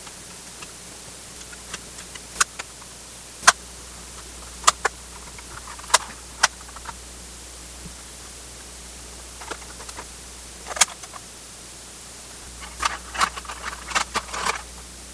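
Plastic clicks and knocks from a rear-view mirror dash cam's housing as it is handled and turned over on a workbench. The clicks are scattered at first, with a quick run of them near the end, over a steady hiss.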